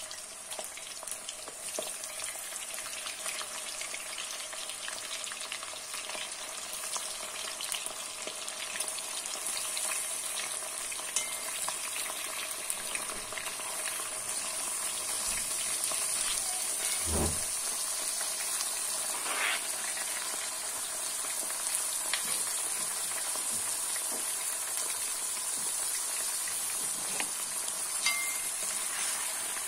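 Pieces of muscovy duck sizzling as they fry in hot oil in a kazan: a steady frying hiss that grows louder as more pieces go in, with a few light knocks as pieces are dropped in and stirred.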